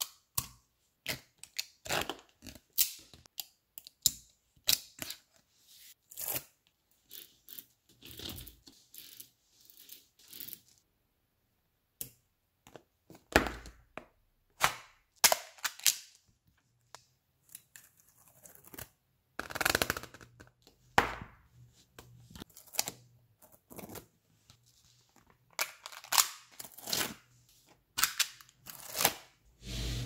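Small neodymium magnetic balls clicking and snapping together in irregular bursts, with longer scraping stretches as slabs of balls slide against a plastic card and against each other.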